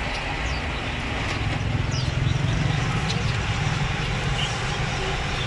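Steady low rumble of nearby traffic engines, swelling a little midway, with a few faint short chirps from caged songbirds.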